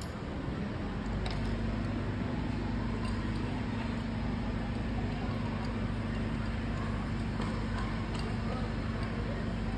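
Busy large-hall ambience: a steady noisy rumble with distant voices. A low steady hum comes in about a second in, and a few light clicks sound now and then.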